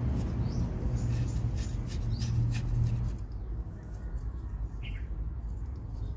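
Birds chirping, with a low steady rumble that fades out about three seconds in and scattered light ticks.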